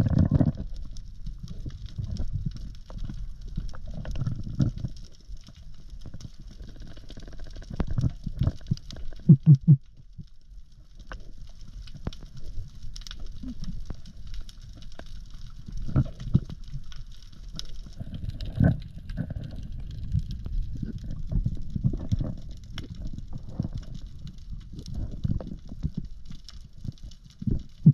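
Muffled underwater sound picked up by a camera in a waterproof housing while a spearfisher swims over a reef: irregular low thuds and water movement, with a faint crackling hiss above. A few louder low pulses come about nine seconds in.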